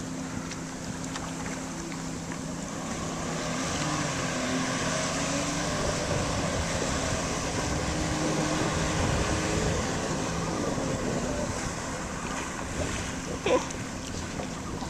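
Sea-Doo RXP-X personal watercraft running on the water, mixed with wind on the microphone; the noise swells through the middle as the craft is throttled up and rears nose-high in a wheelie, then settles. A short knock about a second before the end.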